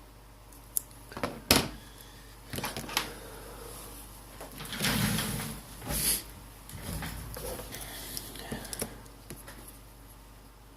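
Small parts and tools being handled on a bench: two sharp clicks or taps in the first second and a half, then irregular bursts of rustling and scraping.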